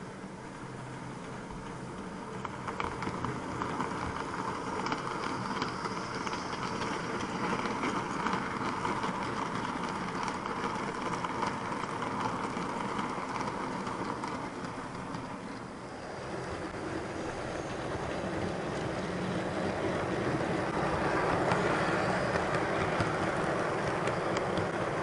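Model trains running on the layout's track: wheels rolling over the rails with the electric motor's hum. The first passing train builds in loudness over several seconds. The sound dips and changes about two-thirds of the way through, then builds again as a model Blue Pullman set passes close by, loudest near the end.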